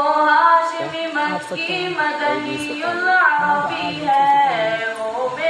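A single voice chanting a devotional melody unaccompanied, with long held notes that bend and glide in pitch.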